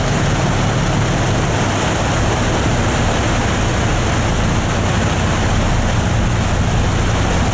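Tour boat's engine running with a steady low hum under a constant rush of wind and water noise.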